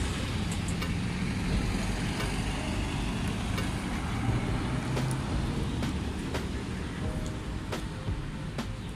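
City street traffic: cars and buses running past with a steady hum of engines and road noise.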